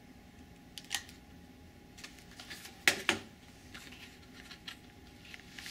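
A few light clicks and taps from handling a hot glue gun and a wire pushrod with its plastic clevis, with two sharper clicks close together about three seconds in, over a faint steady hum.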